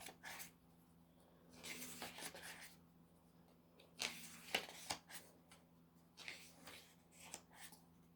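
Faint rustling and swishing of photobook pages being turned and handled, several soft page turns a second or two apart, over a faint steady hum.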